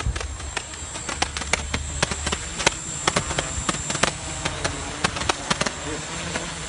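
Pyrotechnics mounted on a multirotor drone crackling, with many sharp, irregular pops, over the steady whine of the drone's motors.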